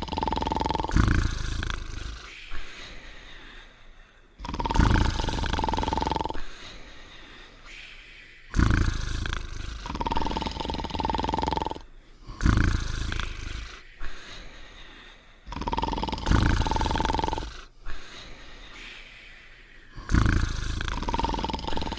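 Cartoon snoring sound effect: a rumbling snore alternating with a steady whistling tone, in a regular cycle that repeats about every four seconds.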